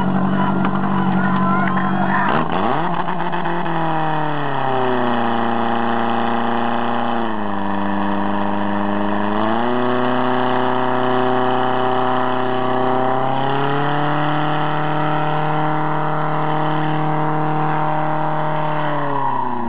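Portable fire pump's petrol engine running low, then revved up about two seconds in and held at high revs to pump water through the hoses. The revs dip briefly partway through, climb again, and fall away near the end.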